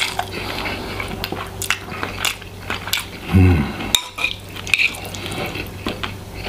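Metal chopsticks clicking and scraping against a ceramic bowl as sticky noodles are mixed through thick black bean sauce, with soft wet squishing. A short, low hum of a voice comes about halfway through.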